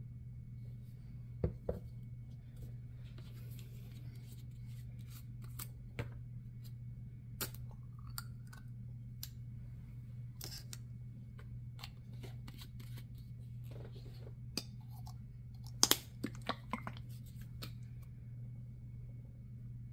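Scattered small clicks and taps of plastic paint squeeze bottles and their caps being handled and set down on a wooden table, the loudest cluster about three-quarters of the way through, over a steady low room hum.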